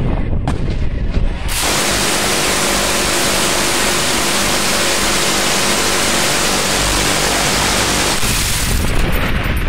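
Quad-mounted rotary miniguns firing one long continuous burst, so fast that the shots merge into a single unbroken buzzing roar. It starts about a second and a half in and cuts off near the end, with wind rumble and a couple of clicks before it.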